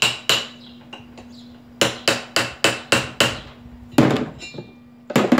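A hammer tapping the angle grinder's clamping nut to tighten the wood-cutting disc in place, used for want of a spanner. The taps are sharp and metallic: two at first, then a quick run of about seven, then heavier knocks near four seconds and at the end.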